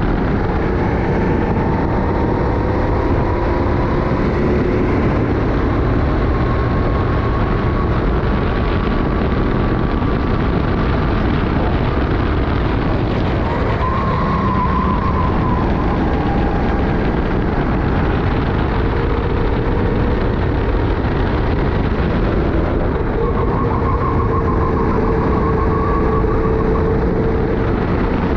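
Racing kart engine running at race pace, its pitch slowly rising along the straights and falling back into the corners, under heavy wind rush on a helmet-mounted camera.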